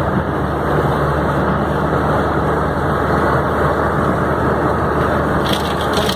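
Inside a car driving through a heavy downpour: a steady rush of rain on the car and tyres on the flooded road, over the low hum of the engine.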